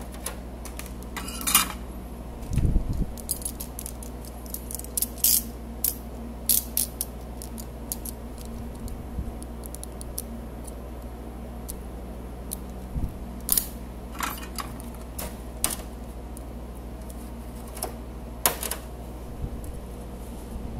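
Scattered small hard clicks and taps of electronic parts and a soldering iron being handled over a perfboard, with one duller thump about three seconds in, over a steady low hum.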